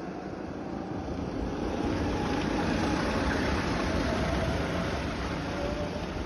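A pack of rental go-kart engines running together as the karts race past. The drone swells as they come close, about halfway through, and eases a little near the end.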